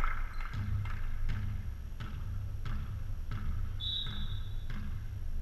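Volleyball play on a hard gym court: a series of separate thuds and footfalls from players and the ball, over a steady low hum. A short, steady high tone sounds about four seconds in.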